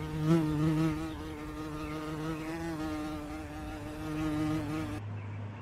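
A flying insect buzzing close by: a steady buzz that wavers slightly in pitch, cutting off abruptly about five seconds in.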